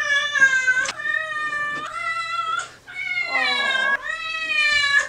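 A wet cat yowling in distress while being bathed: about five long, drawn-out meows in a row, each held for most of a second, with hardly a pause between them.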